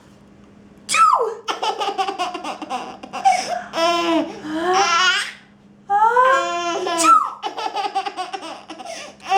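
A baby laughing in long runs of quick, rapid giggles. Each run is set off by an adult's fake sneeze, one about a second in and another about seven seconds in.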